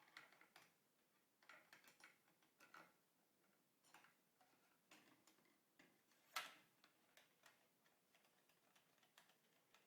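Faint metal clicks and scrapes of a Mauser K98k cleaning rod being slid into its channel under the barrel and fitted in place, with one sharper click about six seconds in.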